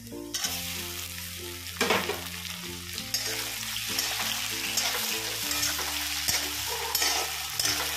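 Frying sizzle in a steel pan as tomato wedges go into hot oil with browned chopped onion. The sizzle jumps up about half a second in and keeps going while a spatula stirs and scrapes the mixture.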